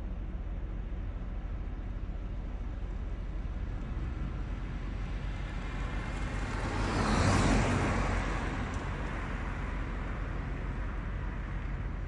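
Steady hum of road traffic, with one vehicle passing, growing louder and then fading, loudest about seven seconds in.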